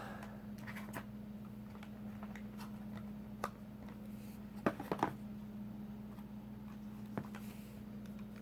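Trading cards and their pack being handled: scattered soft clicks and taps, with a small cluster of sharper clicks about five seconds in, over a steady low electrical hum.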